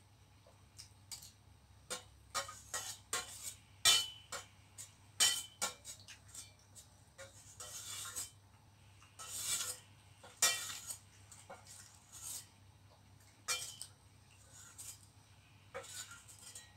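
Metal spoon clinking and scraping against a stainless steel bowl while scooping up food: irregular sharp clinks with a few longer scrapes in the middle.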